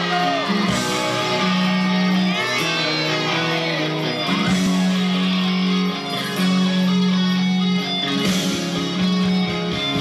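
Amplified electric guitar playing rock music, with long held notes and bends in pitch.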